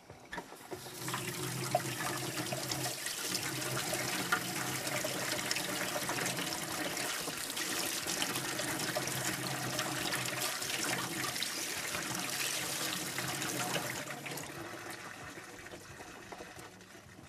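Tap water running into a stainless-steel sink: it comes on about half a second in, runs steadily with a low hum beneath the rush, then dies away over the last few seconds.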